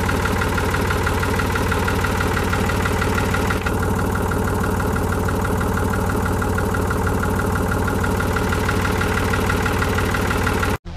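Ford farm tractor's engine running steadily, with the rear PTO shaft engaged and spinning.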